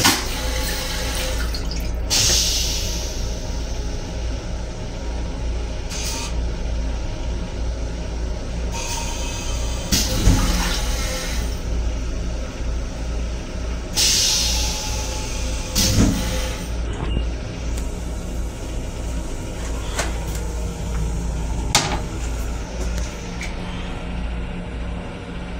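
Stainless-steel toilet in an MTA Long Island Rail Road M7 railcar restroom flushing: the water rinse hisses into the bowl in several surges, with a couple of knocks, over a steady low rumble from the train.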